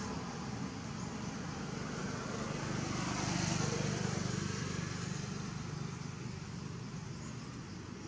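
Steady outdoor rumble and hiss with no distinct events, swelling a little about three seconds in; no monkey calls are heard.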